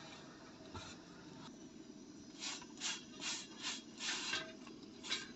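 A hand scraping and rustling against a roti on a tawa: about six short scrapes in two seconds, then one more near the end, over a faint steady low hum.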